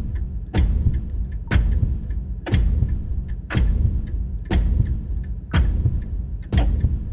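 Horror-style heartbeat sound effect: a slow, steady heartbeat, one sharp beat about every second over a low rumbling drone.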